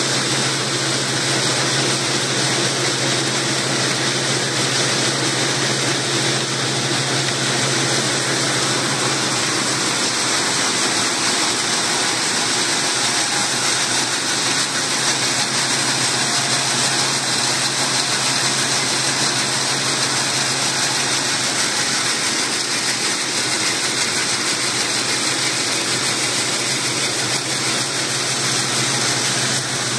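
Gravity table seed separator running while it sorts soldier beans, its fan and shaking deck making a steady rush over a low hum.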